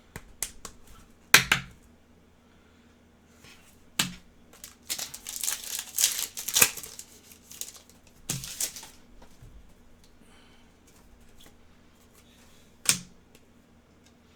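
Panini Select soccer trading cards being handled and flipped through: sharp snaps of card stock at irregular intervals, with a denser stretch of sliding and rustling a few seconds in.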